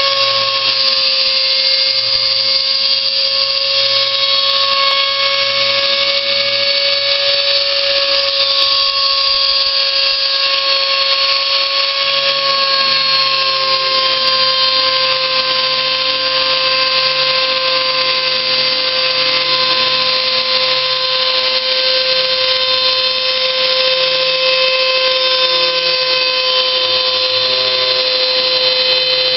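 Homemade CNC machine running: a steady, high motor whine with a quieter low hum underneath that shifts about twelve seconds in.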